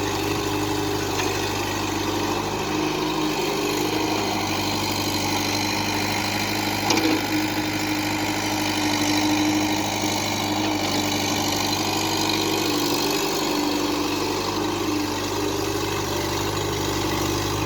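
Heavy diesel engine of a backhoe loader or farm tractor running steadily at a constant speed, with a single brief knock about seven seconds in.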